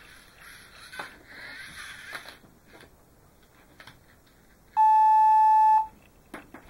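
Lego NXT servo motors whirring as the three-jointed arm replays its recorded rotations, with a click about a second in. The motors stop after about two seconds, and near the end a steady one-second beep sounds from the NXT brick, the loudest sound here.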